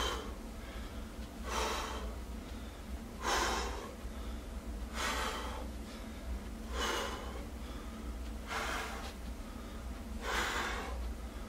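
A man breathing hard while exercising, with a forceful breath out about every 1.7 seconds, seven in all, in time with alternating glute kickbacks against a resistance band.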